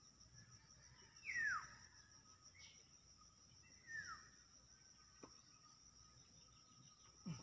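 Quiet rural ambience: a steady high insect drone, over which a bird gives two short calls sliding downward in pitch, about three seconds apart. A couple of faint knocks follow near the end.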